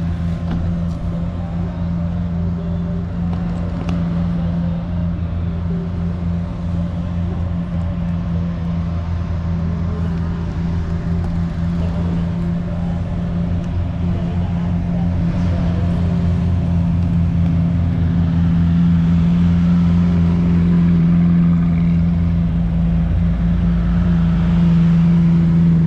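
Ferrari and Lamborghini supercar engines idling: a steady, deep engine hum that grows louder toward the end.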